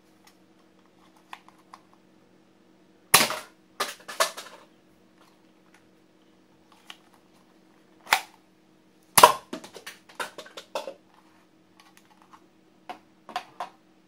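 Hard plastic clicks and snaps from a toy pistol that fires plastic bullets, as it is loaded and worked. The two loudest snaps come about three seconds in and about nine seconds in, with lighter clicking and clatter between and after.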